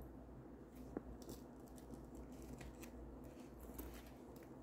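Faint handling sounds of a leather crossbody bag being turned over by hand: light rustles and small ticks, with one brief click about a second in.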